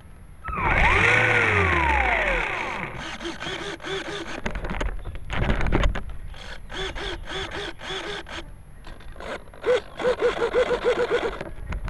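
A model plane's motor and propeller throttle up briefly and then spin down, the pitch rising and then falling over about two seconds. After that come scattered clicks and knocks, with bursts of short chirping notes repeating about five times a second.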